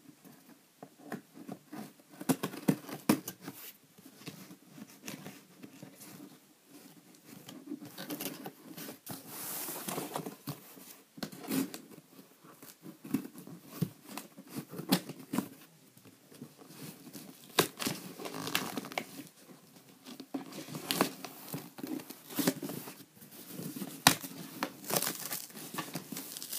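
Cardboard shipping box being opened by hand, with irregular tearing and crinkling sounds throughout.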